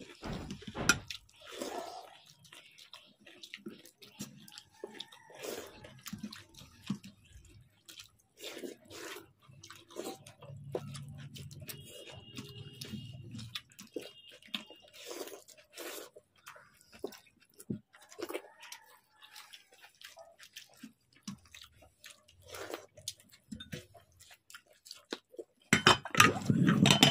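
Two people eating panta bhat, rice soaked in water, by hand from steel plates: wet squelching and dripping as the rice is mixed in its water, fingers scraping the plates, and chewing, in many short scattered sounds. A louder burst of sound comes near the end.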